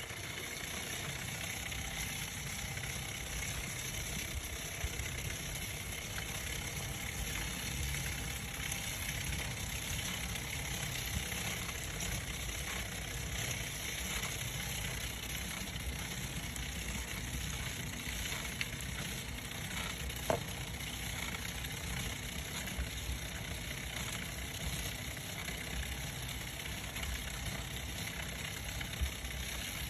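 Shimano Alfine 11 internal gear hub turning with a steady noise that has no clear pitch, and a few short clicks, one sharper about twenty seconds in; the owner finds the noise suspect.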